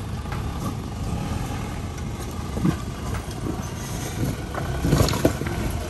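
Off-road vehicle's engine running at low speed over a rough track, with a few sharp clunks about two and a half seconds and five seconds in.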